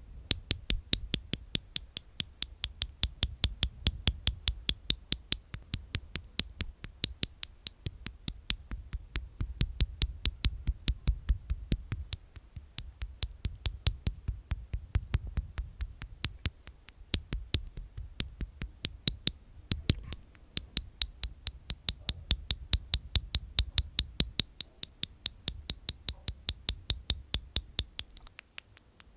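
Close-miked ASMR mouth sounds: fast, evenly spaced clicks from inside the mouth, about three to four a second, over a soft low rumble.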